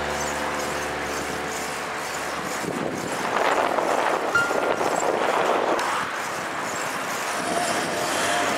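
A held music chord dies away over the first two or three seconds, then road traffic noise swells and fades between about three and six seconds in, as from a car going by.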